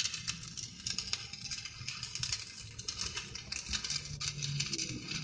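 Stick (shielded metal arc) welding arc burning on a steel pipe: a steady crackle full of quick, irregular pops.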